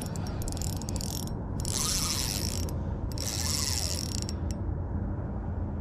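Spinning reel being cranked to retrieve a jerkbait: a fast mechanical clicking of the reel's gears and handle, in three spells of about a second each with short pauses between.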